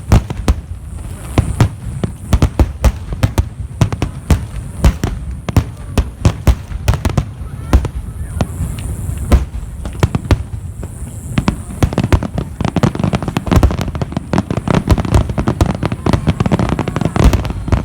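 A fireworks display: shells bursting overhead in rapid succession, many sharp bangs following one another. From about twelve seconds in the bangs come thicker and faster, with continuous crackling between them.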